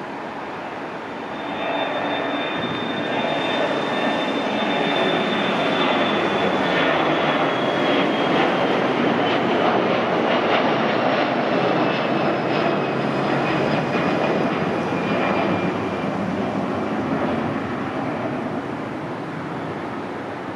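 Boeing 737-500's CFM56-3 turbofan engines at takeoff power during climb-out. The jet noise swells about a second and a half in, peaks with a crackling rumble through the middle, then fades near the end. A high engine whine slowly falls in pitch as the aircraft passes.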